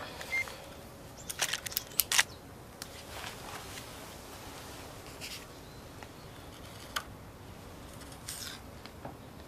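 A few sharp clicks and light handling noises from small objects being handled by hand: a quick run of clicks about a second and a half to two seconds in, a single click about seven seconds in and a short rustle near the end, over faint room hiss.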